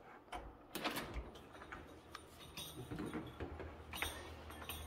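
A few faint, scattered clicks and taps in a quiet room.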